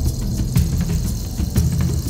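Background music with a heavy bass line and a steady beat.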